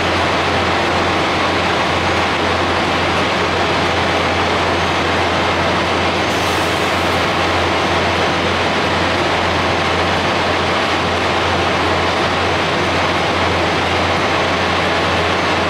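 Steady drone of idling diesel truck engines with an even hiss, unchanging throughout.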